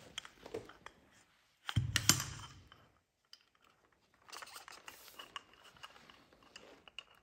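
Piston, wrist pin and tools being handled on a workbench: small metal clicks and scrapes, with one louder knock about two seconds in.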